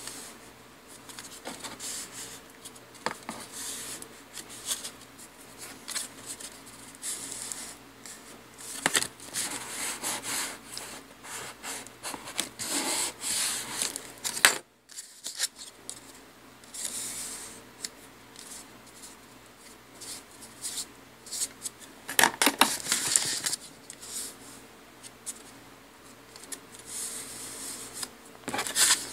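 Bone folder rubbing and scraping across cardstock on a cutting mat in repeated irregular strokes, mixed with paper panels sliding and being handled. The sound drops out briefly about halfway through.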